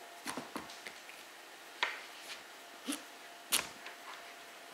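Large kitchen knife being forced through the hard rind of an acorn squash on a cutting board: a few short, separate cracks and knocks, the sharpest a little under two seconds in and again about three and a half seconds in.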